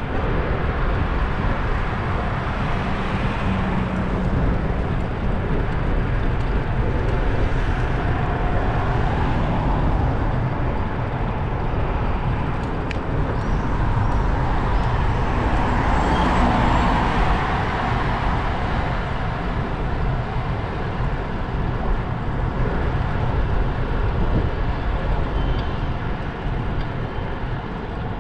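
Steady wind rush and road noise from a moving vehicle, with a deep rumble, growing a little louder about halfway through.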